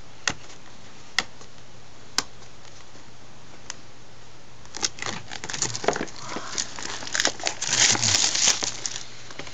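Three separate sharp clicks, then from about five seconds in, plastic packaging crinkling and rustling as it is handled. The crinkling grows loudest near the end.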